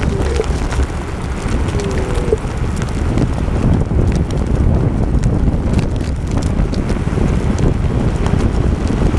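Wind buffeting the microphone over the rumble of an e-scooter's wheels rolling on a rough dirt track, with scattered clicks and rattles and a couple of brief squeaks in the first two and a half seconds.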